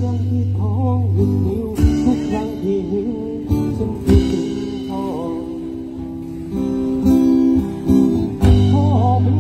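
One-man band playing a Thai phleng phuea chiwit song: strummed acoustic guitar and a man singing, with a few sharp hits on the bass drum and cymbal strapped to his back.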